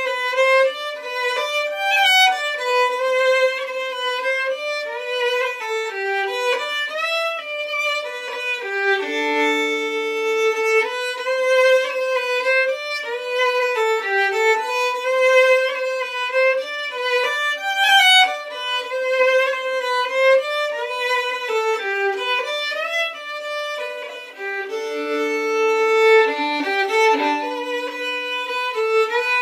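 Solo fiddle playing a gentle waltz melody, bowed legato, with double stops in places.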